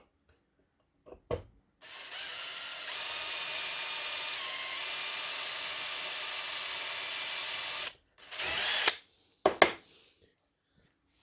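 Power drill running steadily for about six seconds, drilling out a broken screw of soft metal, with a brief dip in pitch partway through as the bit loads up. It is followed by a few short clatters of handling.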